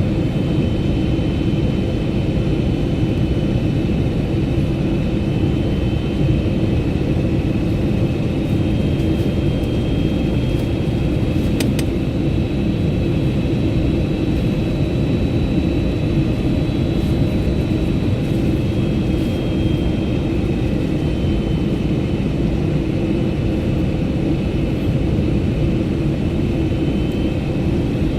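Steady cabin roar of an Airbus A321neo in flight: airflow and its CFM LEAP-1A turbofan engines, with faint high whines that shift slightly in pitch now and then. A single click comes about twelve seconds in.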